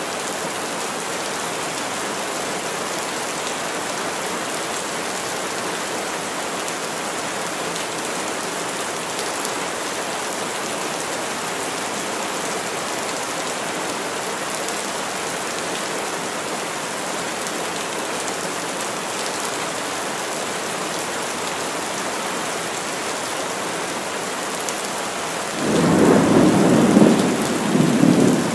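Heavy rain falling steadily on the forest. About 25 seconds in, a loud rumble of thunder rolls in and carries on to the end.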